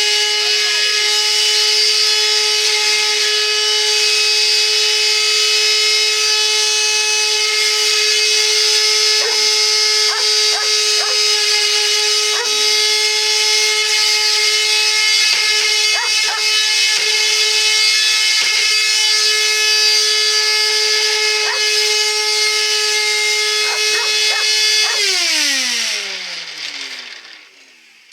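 Bissell vacuum cleaner motor running with a loud, steady, high-pitched whine, which the owner finds abnormally loud although it still sucks. About 25 seconds in it is switched off and winds down, falling in pitch. A few brief squeaks sound over it.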